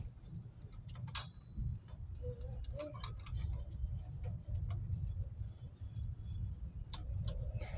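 Scattered light metallic clicks and clinks of drum-brake hardware being worked by hand as a small brake spring is fished back into place, over a steady low rumble.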